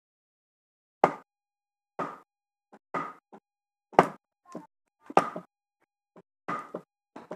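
Wooden club striking wooden wedges driven into a split along a large log, a series of sharp wooden knocks about once a second with lighter knocks in between, as the trunk is split lengthwise by hand.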